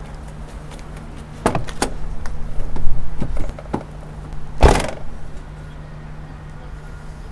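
Van door being handled: a couple of clicks and rattles, then the door slammed shut about four and a half seconds in, over a steady low hum.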